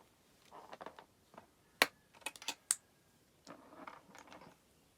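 Small plastic LEGO pieces clicking and tapping as they are handled and fitted together: a handful of sharp clicks, the loudest about two seconds in.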